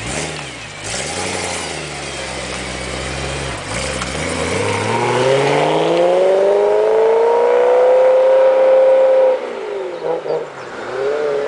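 Supercharged BMW M3 E92's V8 pulling away and accelerating hard: the exhaust note climbs steadily in pitch for about five seconds, louder as it goes, then cuts off sharply. Two short throttle bursts and a fresh rise follow near the end.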